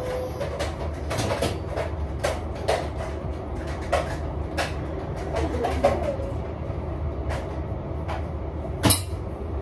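Kitchen clatter: scattered sharp knocks and clinks of utensils and cookware over a steady low hum, with one louder knock near the end.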